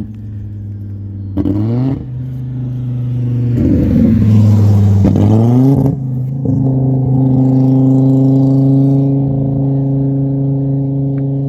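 Car engine note that sweeps up in pitch about a second and a half in. It is loudest from about four to six seconds in, rising again near the end of that stretch, then holds a steady note.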